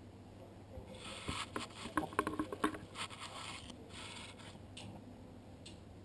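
Corgi puppies scrabbling and rustling on a fleece blanket right by the microphone: scratchy scrapes with small clicks, starting about a second in and lasting about two seconds, then a shorter second bout.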